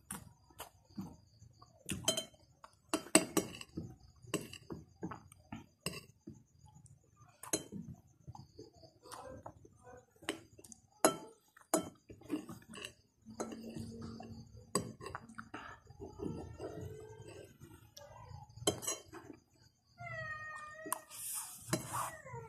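A metal spoon clinking and scraping against a plate of rice in repeated short taps, with a cat meowing a few times in the second half.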